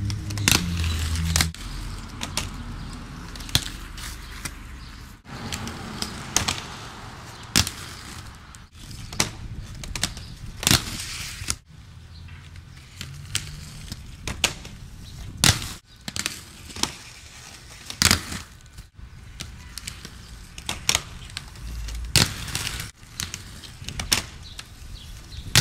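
Aggressive inline skates hitting and grinding a homemade wooden rail: repeated sharp wooden knocks and clacks as the skates land on and hop off the plank, between stretches of wheels rolling on pavement. The sound breaks off abruptly several times.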